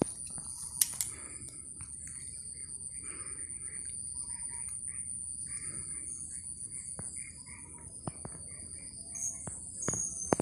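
Small birds chirping in short, repeated calls over a steady high-pitched whine. A sharp click comes about a second in, and a few more near the end.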